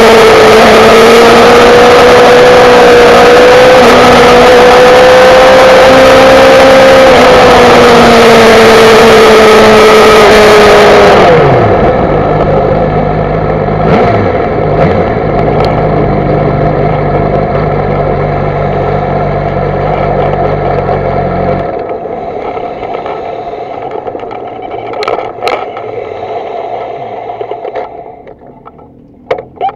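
Yamaha YZF-R6 inline-four sport bike engine heard from the bike itself, held at high revs under a steady rush of wind. About eleven seconds in, the revs drop sharply as the rider rolls off. It then runs at low revs and gets quieter as the bike slows to a crawl, with a few clicks near the end.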